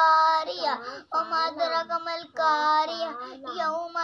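A young boy reciting the Quran aloud in Arabic in a melodic chant, drawing out the notes in short phrases with a brief pause about a second in.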